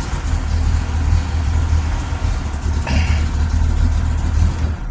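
1966 Chevrolet Corvette V8 idling steadily while it warms up after a cold start, chugging away. The engine cuts off near the end.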